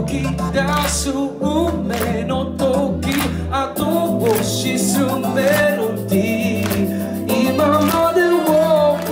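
A song performed live: singing into microphones over a backing track with a steady, sustained bass line.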